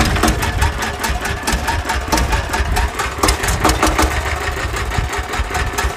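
Single-cylinder diesel engine of a Sanedo mini tractor running just after being hand-cranked to start, with a rapid, even knocking beat over a low rumble.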